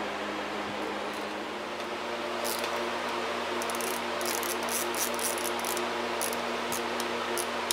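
Small socket ratchet clicking in quick runs of short metallic clicks, starting a couple of seconds in, as nuts are run down onto the studs on the back of an alternator, over a steady background hum.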